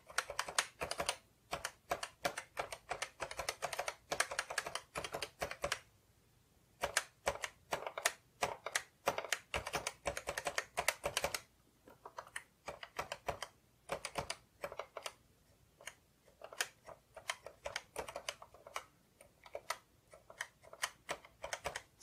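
Keys of a Canon Typestar 10-II electronic typewriter clicking as they are pressed over and over to test freshly refitted keys. The clicks come in quick runs for about the first eleven seconds, with a brief pause in between, then thin out to scattered presses.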